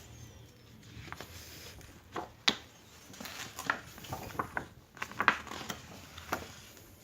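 A string of irregular clicks and knocks, like objects being handled, with the sharpest ones about two and a half seconds and five seconds in.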